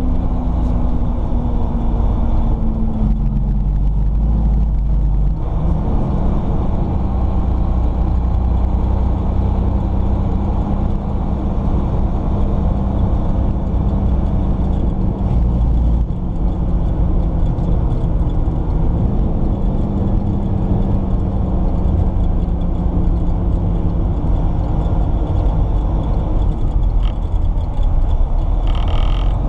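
Diesel engine of a 1998 Seagrave rescue pumper running under way, heard from inside the cab as a steady drone with road noise. Its pitch sags and then climbs back a couple of times as the engine speed changes.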